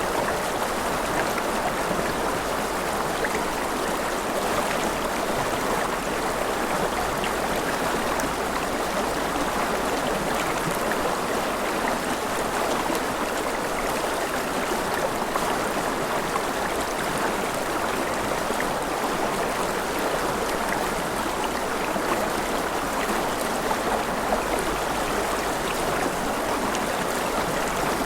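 Gentle rain falling steadily: an even, unbroken hiss with faint scattered drop ticks.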